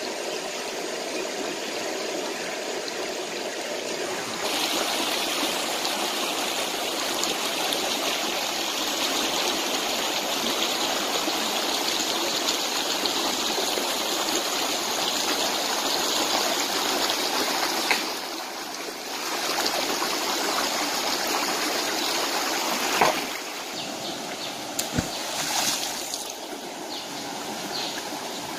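Shallow stream water running and trickling over rocks, steady throughout. Near the end come a few sharp knocks or splashes.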